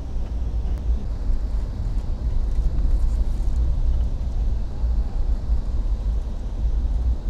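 Steady low rumble of a moving vehicle, heard from inside the passenger cabin.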